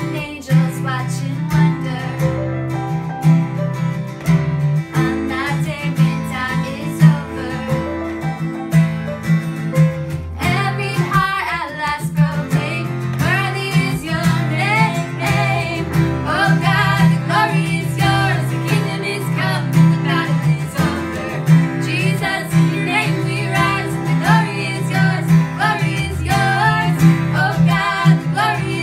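Worship song played on strummed acoustic guitar, instrumental at first, with a voice coming in singing about ten seconds in and carrying on over the guitar.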